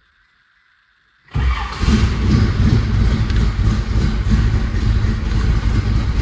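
A 1967 Chevrolet Camaro's 350 V8 firing up on an ice-cold start about a second in, then running loud with the lope of a cammed-up engine.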